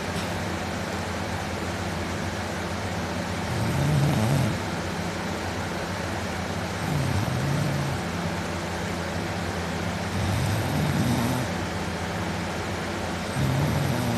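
A man snoring pretty loud in deep sleep: four snores about three seconds apart, each a low rattling swell about a second long, over a steady hum.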